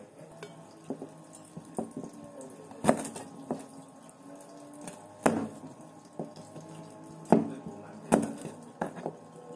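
Kitchen work at a sink: water with sharp, irregular knocks of dishes and utensils, about one a second.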